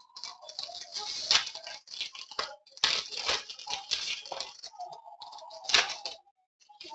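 Basketball trading cards being handled and slid past one another, a run of dry rustles and clicks with a short pause about six seconds in.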